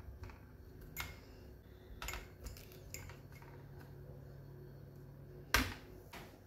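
Light clicks and knocks of a glass jar as pepper pieces are pressed tightly into it by hand, with a louder thump about five and a half seconds in as the jar is set down on a plastic tray, followed by a smaller knock.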